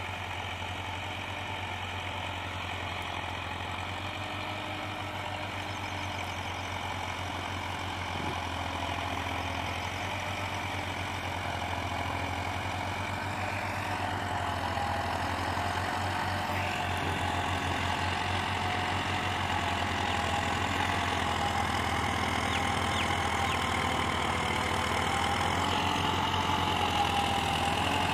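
Massey Ferguson 385 tractor's four-cylinder diesel engine running steadily under load while pulling a tined cultivator through the soil, growing louder as it comes closer.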